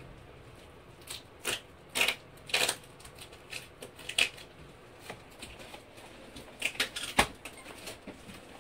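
Irregular clicks and short rustles of objects being handled, with a sharp knock about seven seconds in.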